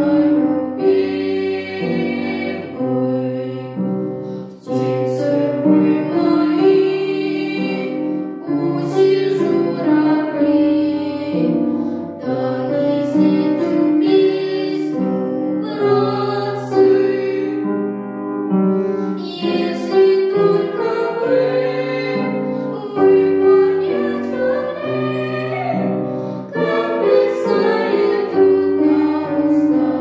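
Two children, a girl and a boy, singing a duet in Russian with live piano accompaniment, in continuous phrases over sustained piano chords.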